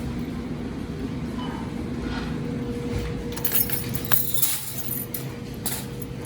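Grocery store background: a steady hum over a low rumble, with a run of light clicks and clinks starting about halfway through.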